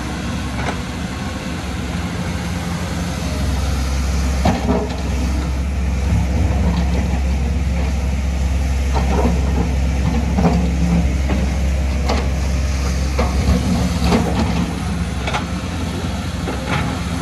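Diesel engines of two crawler excavators running steadily under load, the nearer one a Kobelco, as they dig and dump soil. From about four seconds in, short knocks and clatters of rock and earth shifting and the bucket striking sound over the steady engine hum.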